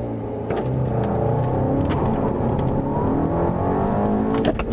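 Turbocharged four-cylinder engine of a Volkswagen CC R-Line, heard from inside the cabin, pulling hard in a full-throttle 0–60 mph launch from about 3,000 rpm. Its pitch climbs as the revs rise, with a few sharp clicks near the end.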